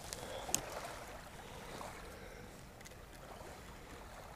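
Faint steady outdoor background noise with two small sharp clicks in the first second.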